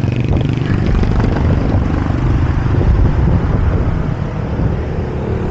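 Wind buffeting the microphone of a small action camera on a moving bicycle: a loud, steady low rumble with a hiss above it.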